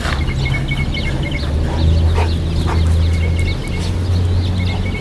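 Birds chirping, many short high calls with runs of quick repeated pips, over a steady low rumble that swells in the middle.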